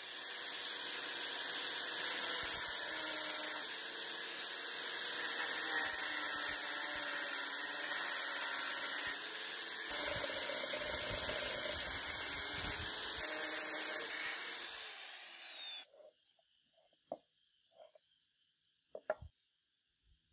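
Angle grinder running, its abrasive disc grinding steel as it cuts protruding screw ends flush on angle iron, with the motor whine dipping briefly a few times under load. About 15 seconds in it is switched off and winds down, followed by a few light knocks of the metal being handled.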